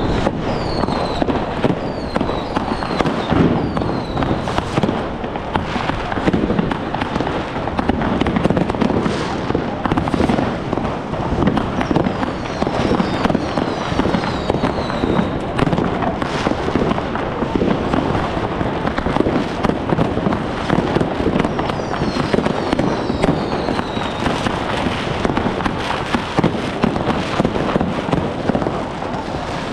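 New Year's fireworks and firecrackers going off without a break: dense crackling and bangs, with short high falling whistles now and then.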